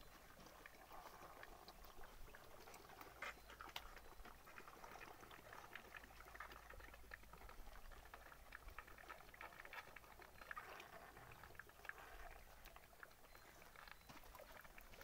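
Faint gurgling and slurping of elephant calves sucking milk from large feeding bottles: a soft, irregular crackle of small wet clicks.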